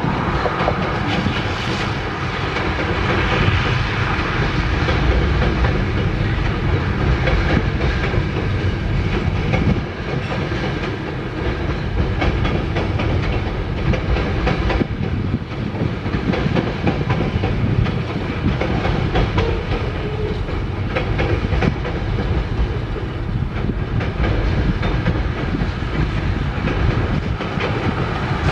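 Freight train of tank cars rolling across a railway bridge: a steady rumble of car wheels on the rails, holding at an even level.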